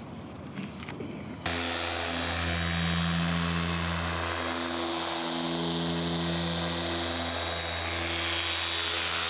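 A dual-action polisher starts about a second and a half in and runs steadily with a low hum and a thin high whine, buffing automotive paint with a foam pad during the first, compounding step of a paint correction.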